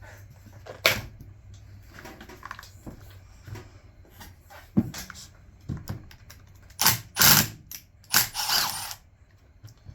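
Hand tools and chainsaw parts clicking and clattering as the handle of a Stihl MS 200T chainsaw is being taken off: scattered sharp clicks, then a busier run of louder clattering from about seven to nine seconds in.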